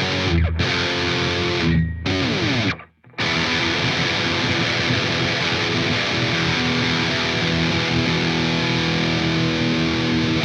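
Epiphone Explorer electric guitar through a high-gain amp simulator, heavily distorted. A few short chord stabs with brief stops come first, then after a short break one chord is struck about three seconds in and left ringing.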